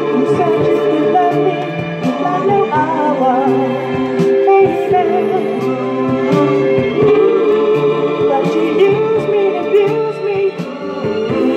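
Recorded music: a band playing held chords under a wavering melody line.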